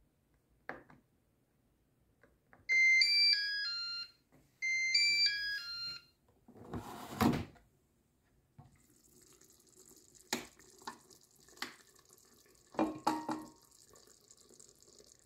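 Moulinex Cookeo multicooker playing a short electronic beep tune of stepped, falling tones, twice about two seconds apart. A loud swish follows as the lid is turned open, then a faint steady hiss with a few clicks and a short clatter near the end.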